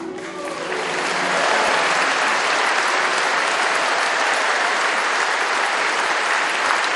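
Audience applauding, building over about a second and then holding steady, as the last harp notes of the piece fade out under the first claps.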